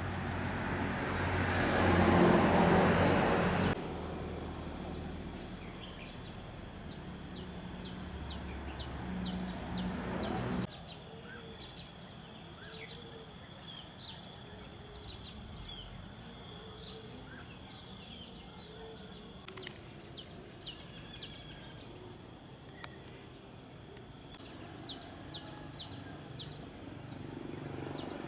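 Outdoor sound in cut-together pieces: a vehicle passing loudly in the first few seconds, a low engine hum until a cut, then birds chirping in quick series of short high notes over a quiet background.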